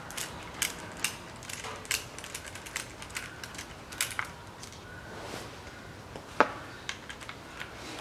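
Irregular metallic clicks and light knocks of a hand tool working on a Chevrolet Lanos five-speed manual gearbox casing and its shift parts. The sharpest knock comes a little after six seconds in.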